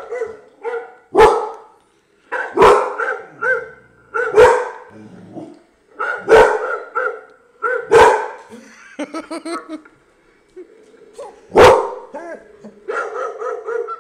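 A Rottweiler barking: about six loud, deep barks spaced a second or two apart, with quieter sounds between them.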